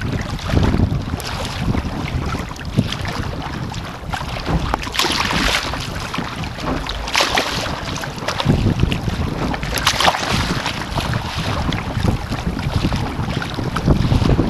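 Strong wind buffeting the microphone on the bow of a surfski, with choppy water rushing and splashing against the hull. Louder splashes come about five, seven and ten seconds in.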